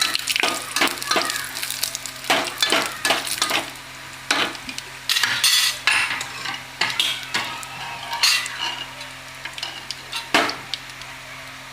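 Tadka spices (bay leaf, whole dried red chillies, curry leaves) sizzling in hot oil while being stirred, with repeated spoon scrapes and clicks against the pan. The stirring strokes come thickest in the first few seconds and thin out later.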